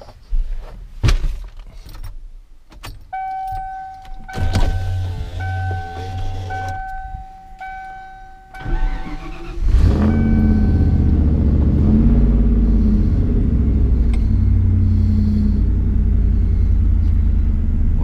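Pickup door shutting and clunks from getting into the cab, then the Ford F-150's warning chime sounding in steady pulses for about five seconds. About nine seconds in, the engine cranks, catches and settles into a steady idle.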